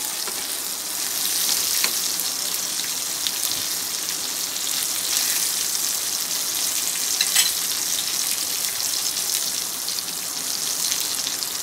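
A tilapia tail piece, tomato halves and garlic cloves sizzling steadily in hot mustard oil in a frying pan, with a couple of light clicks of a metal spatula against the pan.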